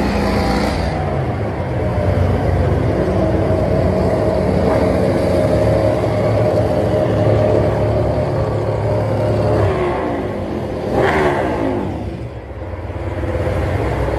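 Several MotoGP four-cylinder racing motorcycle engines running and revving, with one engine sweeping sharply up in pitch about eleven seconds in.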